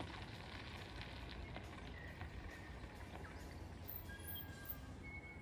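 Mountain bike rolling away over a gravel track, its tyres crunching faintly on the stones, under a low wind rumble.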